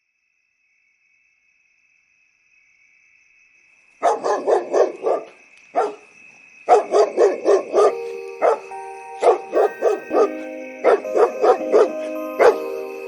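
A dog barking in quick runs of short barks, about four a second, broken by brief pauses, starting about four seconds in after near silence. Music with steady held notes comes in under the barking from about halfway through.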